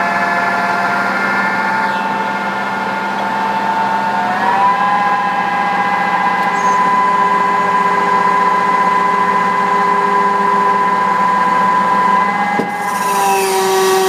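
Putzmeister M32 truck-mounted concrete pump running with a steady whine that steps up in pitch about four seconds in. Near the end there is a single click and a brief drop in level. The pump is working strained and failing to make its automatic changeover, which the owner believes is an electrical fault.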